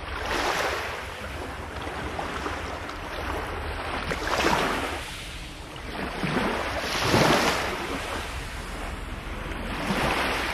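Waves of Lake Biwa washing onto the shore, swelling and ebbing every few seconds. Wind rumbles on the microphone throughout.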